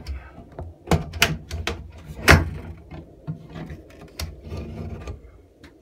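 Handling noise: irregular clicks and knocks as the phone is moved close against the ceiling and the exhaust fan's grille, the loudest about two seconds in, over a low hum.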